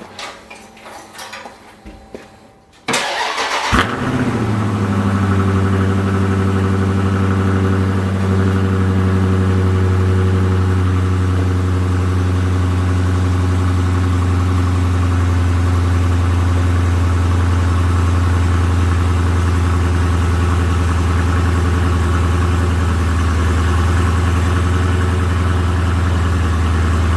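Dodge Challenger Scat Pack's 392 HEMI V8 cold-starting about three seconds in, after some quiet clicking and rustling. It cranks briefly, flares, then settles into a loud, steady idle.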